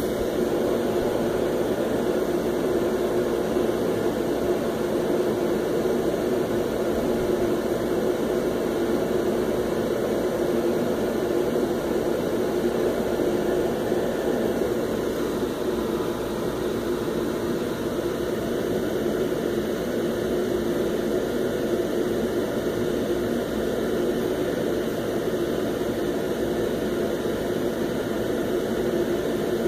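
A steady, unbroken rushing noise, even in level throughout.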